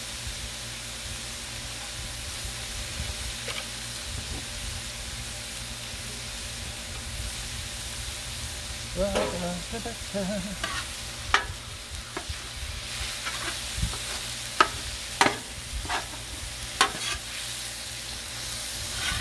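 Ground beef and pork sizzling on a Blackstone flat-top griddle. From about halfway in, a metal chopper-scraper strikes the steel griddle top again and again as it breaks up the meat: sharp, irregular clacks about a second apart.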